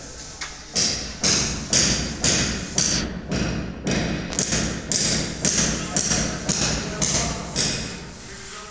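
Footsteps on a hard floor at a walking pace, about two sharp steps a second, echoing in a bare, empty room.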